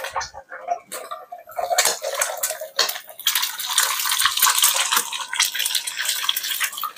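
Egg frying in hot oil with onion in a non-stick wok: a steady sizzle that thickens from about three seconds in as a silicone spatula stirs and breaks up the egg, with scrapes and taps of the spatula against the pan.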